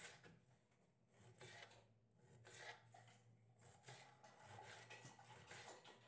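Faint knife cuts through tomatoes onto a cutting board: soft, irregular strokes over a low steady hum.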